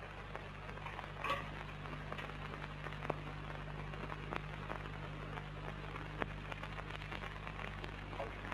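Quiet room with a steady low hum and hiss, broken by a few faint, short taps and knocks.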